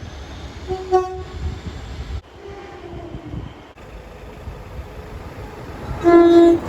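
Train horns sounding short single-note blasts over the low rumble of a train: one about a second in, a fainter one around three seconds, and the loudest blast near the end.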